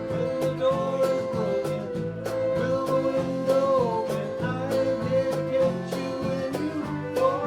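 Live country band playing an instrumental passage: a held lead melody with sliding, bending notes over acoustic guitars, bass and a steady beat of about two strokes a second.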